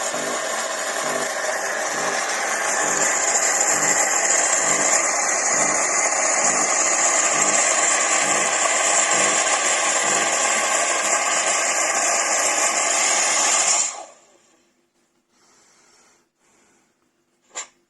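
Cecotec Power Instant-ccino espresso machine running loudly, a steady hiss over a rapid low pulsing, cutting off suddenly about fourteen seconds in. A single sharp click follows near the end.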